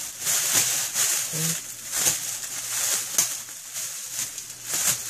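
Thin plastic mailer bag crinkling and rustling in irregular, loud bursts as hands pull at it and tear it open.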